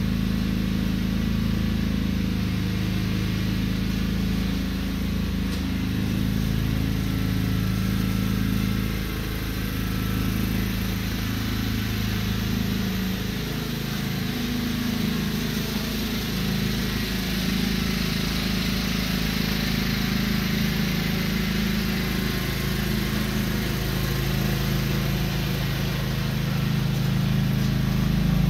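Riding lawn tractor's small engine running steadily as it tows a core aerator across the lawn, getting a little louder near the end as it comes closer.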